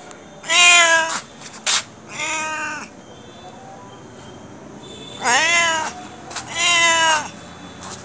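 A domestic cat meowing repeatedly: four loud meows, two close together, then a pause of about two seconds, then two more.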